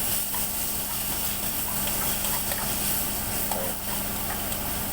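Chopped onion and garlic sizzling in hot cooking oil in a pan, with scattered small pops and a steady low hum underneath.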